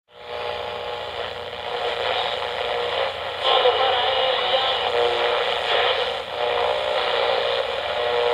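Old-radio static and hum through a narrow, tinny band, with faint steady tones in the noise. It gets a little louder about three and a half seconds in.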